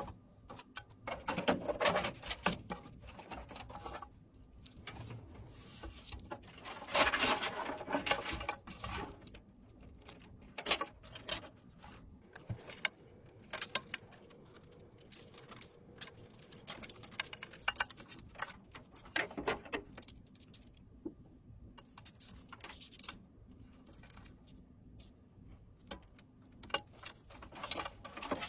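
Hands handling PC components during assembly: irregular small clicks, taps and plastic-and-metal rattles, with a few longer stretches of rustling and scraping.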